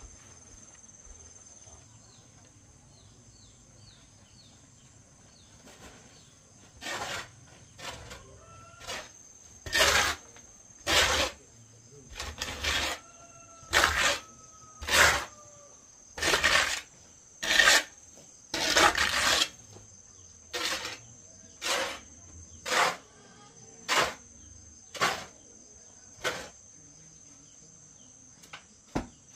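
A long-handled digging tool scraping and scooping loose soil on a dirt floor, in short strokes about one a second that start about a quarter of the way in and stop shortly before the end. A steady high insect drone runs underneath.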